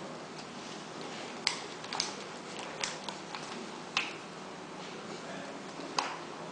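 Packaged syringes being folded by hand and set down on a bench: a few sharp clicks and crinkles of the wrappers, about five clear ones, spread unevenly, over faint room noise.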